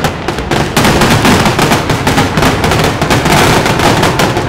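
Aerial fireworks finale barrage: many shells and crackling stars bursting in quick succession, a dense, unbroken string of bangs and crackles.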